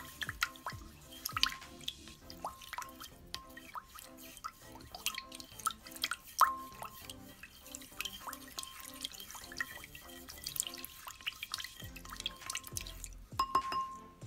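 A hand swishing through purple crystal-growing solution in a ceramic crock, breaking up undissolved chunks of powder. The liquid sloshes and drips with many small plinks, over quiet background music.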